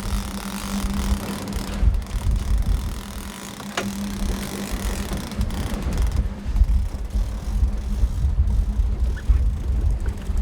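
Fishing boat's engine running steadily at trolling speed, with a steady hum through the first half. Wind buffets the microphone as a heavy low rumble that grows stronger in the second half, and there is one sharp click about four seconds in.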